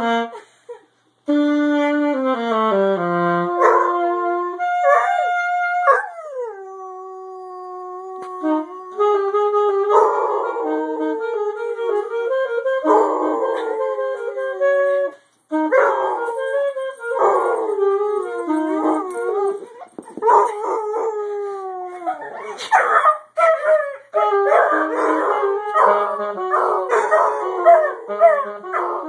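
A saxophone playing held notes while a basset hound howls along with it. After a few seconds of saxophone alone, the hound's long howls join in, rising and falling in pitch over the music and carrying on to the end.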